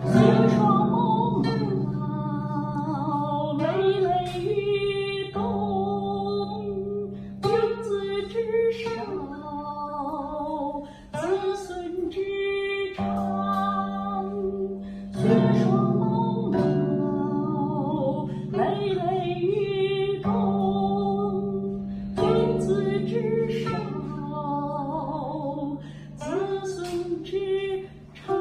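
Guqin played with a woman singing along: low plucked notes ring on for several seconds each under a slow, wavering sung melody.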